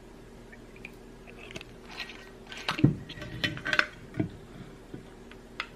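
Glass bottle of soy sauce handled and poured into a small stainless steel cup: a cluster of wet clicks and knocks with two dull thumps, between about two and four seconds in, and one more click near the end.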